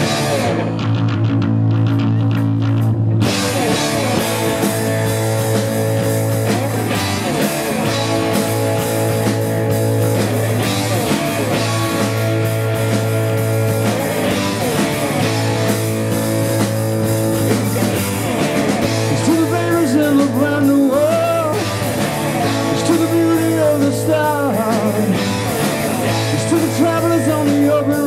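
Live rock band playing: electric guitars, an acoustic guitar, a bass guitar and a drum kit going together at a steady, loud level. The sound fills out in the high range about three seconds in.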